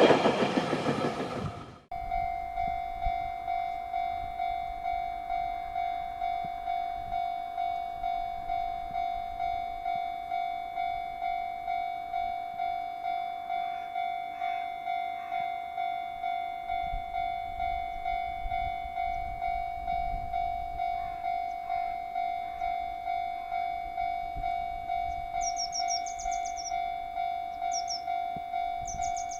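A JR Freight train passing close by, loud rushing rail noise that cuts off abruptly about two seconds in. Then a Japanese level crossing's warning bell rings on and on at about two dings a second, signalling a train is due. Birds chirp near the end.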